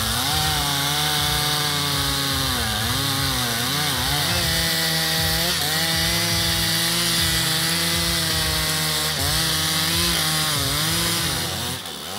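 Two-stroke chainsaw running under load as it cuts through a fallen tree trunk, its engine pitch dipping and recovering again and again as the chain bites into the wood. The sound eases off briefly near the end.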